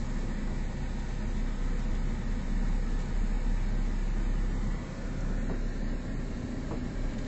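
Car driving slowly on a dirt road, heard from inside the cabin: a steady low rumble of engine and tyres, with a few faint knocks, easing briefly about five seconds in.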